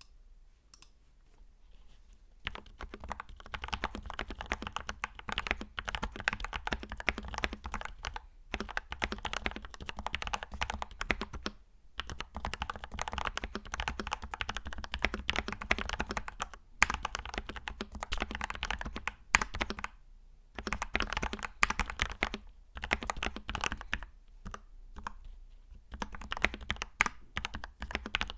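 Typing on a Tester68 mechanical keyboard with Gateron Milky Yellow linear switches: fast, continuous keystrokes starting about two seconds in, broken by brief pauses every few seconds.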